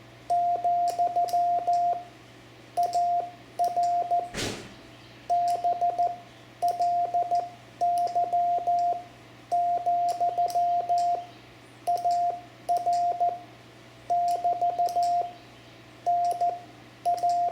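Morse code (CW) sent slowly by hand: a steady mid-pitched tone keyed on and off in dots and dashes, grouped into characters with short gaps, spelling out the operator's location (QTH), shortened to 'BLY'. A brief rustle about four seconds in.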